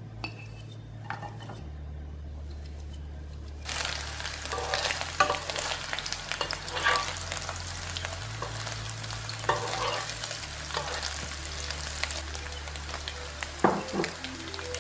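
Sliced sausage frying in oil in a nonstick pan: a sizzle starts abruptly about four seconds in and runs on, while a utensil stirs and turns the pieces with clicks and scrapes against the pan.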